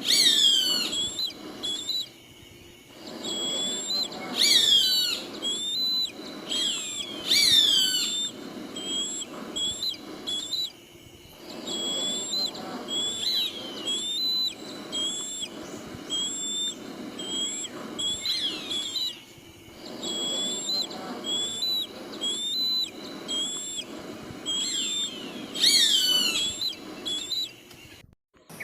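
Bird calls: high, piercing whistled notes that fall steeply in pitch, repeated many times over a steady background, the loudest ones near the start, twice more in the first eight seconds and again near the end. The sound cuts off suddenly just before the end.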